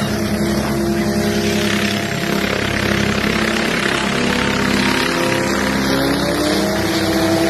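Helicopter engine and rotor running, a steady mechanical drone whose pitch climbs from about four seconds in.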